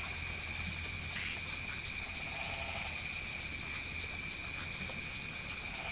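Night chorus of crickets and other insects: a steady high buzz with a faster pulsing trill above it, and a short lower trill about two seconds in.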